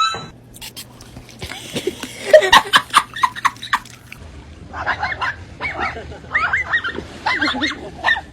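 A burst of knocks and clatter, then a run of short, high animal cries that rise and fall, several a second.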